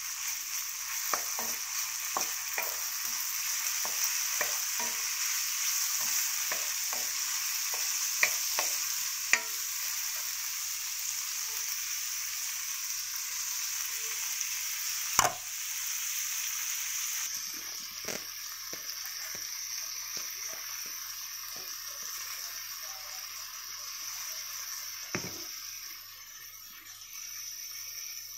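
Vegetables sizzling in hot oil in a metal wok while a wooden spatula stirs and tosses them, with frequent short clicks and scrapes of the spatula against the pan. One sharper knock comes about halfway through, and another shortly before the end.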